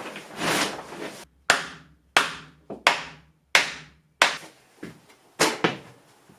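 A hammer knocking a 2x4 stud wall into place: a short scrape, then about eight sharp blows at an uneven pace, roughly one every half second to second.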